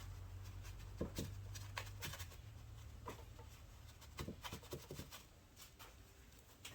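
Faint scattered clicks and light rubbing of hands handling parts on a Peerless 206 transaxle during reassembly. A low hum fades out about two seconds in.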